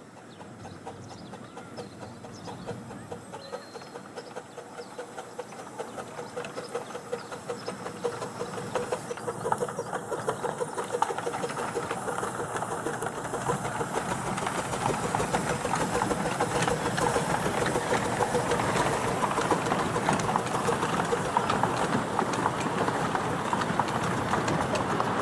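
Miniature 4-6-2 steam locomotive No. 12 "Pioneer" working a passenger train away from the station, its exhaust beats chuffing in a quick rhythm along with the clatter of the carriages on the rails. The sound grows steadily louder as the train draws near.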